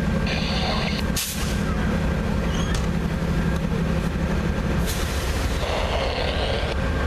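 Diesel passenger locomotive idling with a steady low drone, its upper hum dropping away about five seconds in. Short hisses of air sound about half a second in and again near six seconds.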